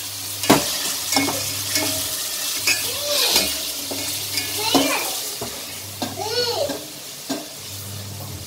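Onion, green chilli and ginger-garlic paste sizzling as they fry in a stainless steel pot, with a steel spoon stirring and clinking against the pot's side again and again. The frying sound drops away near the end.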